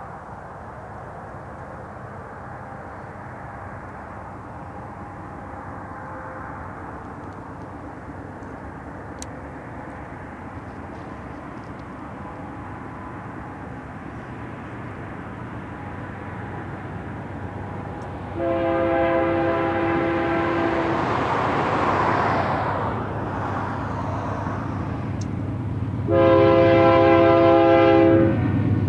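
BNSF GE C44-9W diesel locomotives hauling a double-stack container train approach, their rumble slowly growing louder. The locomotive's air horn sounds two long blasts, about two-thirds of the way in and again near the end, the second one louder.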